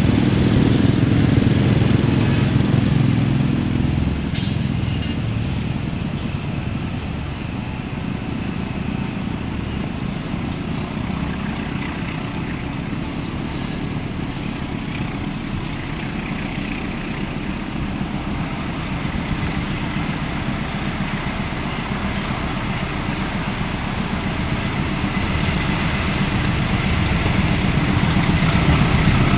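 A GE diesel-electric locomotive hauling a passenger train approaches, and its engine grows louder over the last few seconds. For about the first four seconds, a louder low engine drone from another nearby vehicle dominates, then fades.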